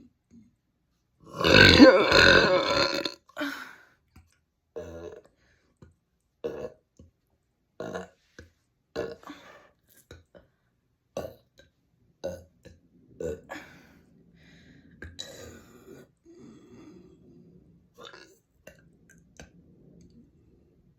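A person burping: one loud, long burp lasting about two seconds, followed by a string of short, much quieter burps about a second apart.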